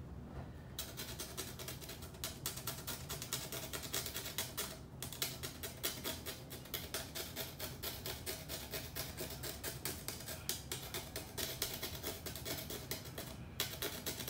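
A hand tool scratching and scraping the rind of a pumpkin in rapid short strokes, roughing up its skin, with brief pauses about five seconds in and near the end.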